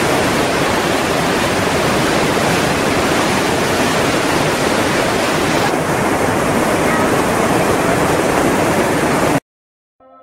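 Whitewater river rapids rushing in a loud, steady noise. About six seconds in the sound turns a little duller, and it cuts off suddenly near the end.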